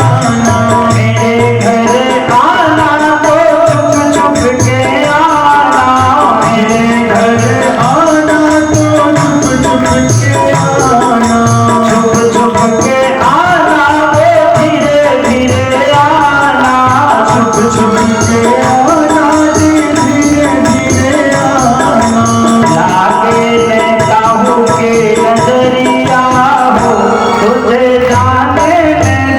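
Devotional kirtan music: held melody tones over a steady drum beat.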